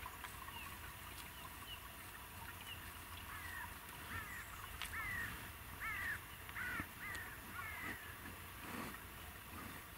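A bird calling: a run of about seven short calls, roughly one every second or less, from about three seconds in until about eight seconds in, with fainter high chirps before them.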